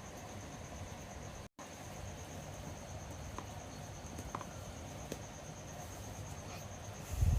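A cricket chirping steadily over a low background hum, with a few faint clicks. The sound drops out for an instant about a second and a half in, and there is a short low thump near the end.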